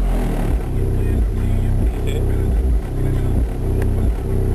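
Music with a heavy, repeating bass line played loud through a car stereo's subwoofers, heard from outside the car, with the bass far stronger than the muffled higher parts.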